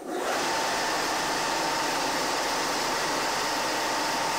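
Richpeace four-head automatic template sewing machine running at speed: a dense, steady mechanical whir with a steady high hum, cutting in abruptly.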